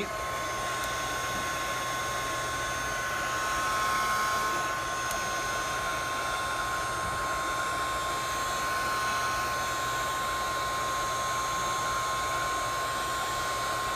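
Electric hot-air blower switched on and running steadily with a whining motor, heating the phone to soften the screen adhesive.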